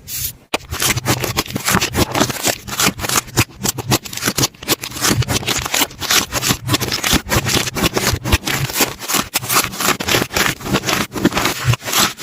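Slime being worked by hand: a dense, steady run of quick crackling pops and squishes, many a second, with a short pause about half a second in.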